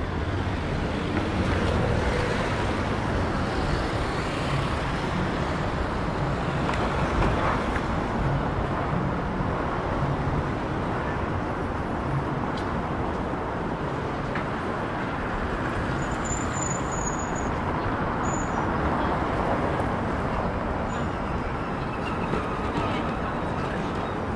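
Steady city street traffic: the even rumble of passing cars and buses, with a brief faint high squeal about two-thirds of the way in.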